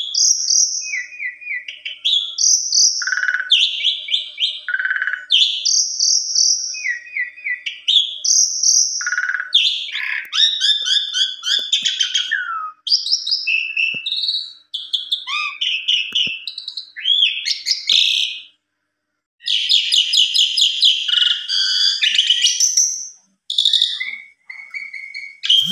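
Javan pied starling (jalak suren) singing a long, varied song of loud whistled notes, fast chattering trills and harsh rasping phrases, with a short break about two-thirds of the way through.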